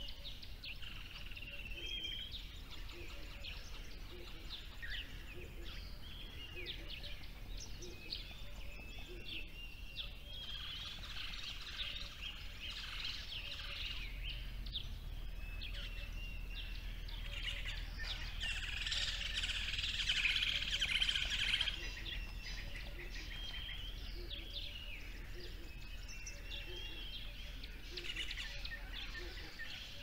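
A chorus of small songbirds chirping and singing, many short high calls overlapping, busiest a little past the middle.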